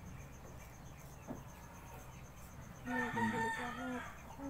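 A rooster crowing: a loud, held call about three seconds in, lasting just over a second.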